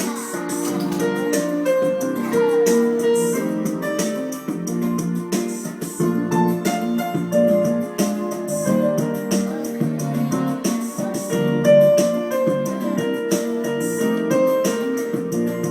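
Piano music: notes and chords played on, with short clicks among them.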